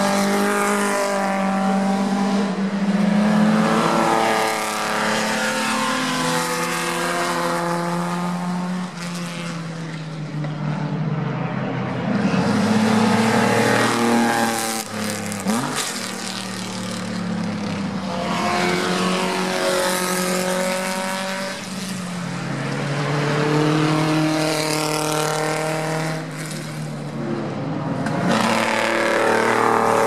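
Historic Grand Prix racing cars passing one after another at speed, several in turn. Each unsilenced engine note rises in pitch as the car accelerates through the gears, then falls away as it goes by.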